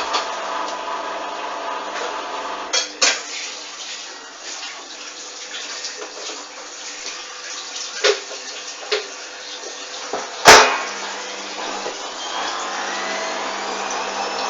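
Hoover front-loading washing machine trying for its final spin with an unbalanced load. The drum turns with water sloshing, and the wet laundry thumps several times, loudest about two-thirds through. Near the end the motor's whine rises as the drum speeds up.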